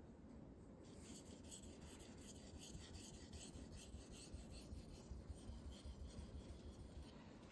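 Thin AEB-L steel knife blade stroked back and forth on a Naniwa 3000-grit whetstone: a faint, rhythmic scraping of quick sharpening passes that starts about a second in and stops just before the end.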